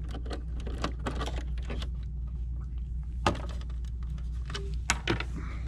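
Small plastic-and-metal clicks and knocks as a sewing machine's snap-on presser foot is released and lifted off, with two sharper clicks about three and five seconds in, over a steady low hum.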